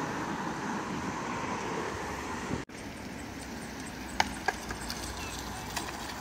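Steady outdoor hiss of wind and distant traffic that cuts off abruptly a little under halfway. Then a quieter background with a few sharp wooden clacks of skateboards, two close together about four seconds in and more near the end.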